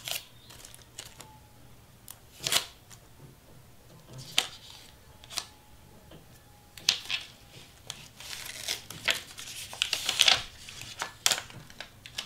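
Sublimation transfer paper being peeled off a freshly pressed tumbler and crumpled: irregular crinkling and tearing rustles that get busier near the end.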